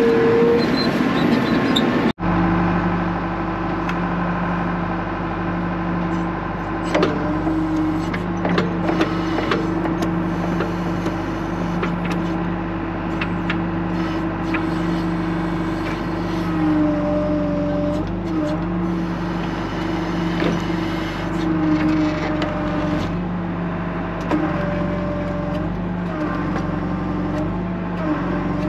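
John Deere 310 backhoe's diesel engine running steadily, its pitch shifting as it is loaded and revved while digging. Occasional knocks and clanks sound over the engine.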